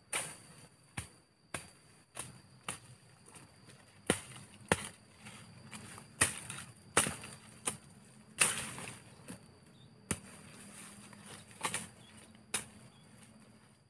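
Machete chopping and slashing through undergrowth: sharp irregular strikes, about fifteen, with brushy rustling between some of them.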